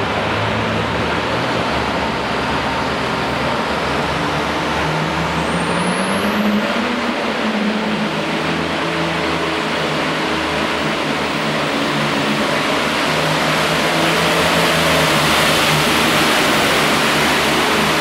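Super Farm class John Deere pulling tractor's turbocharged diesel running wide open as it drags the weight-transfer sled. The engine pitch rises briefly about six seconds in and settles back, and the sound grows louder toward the end.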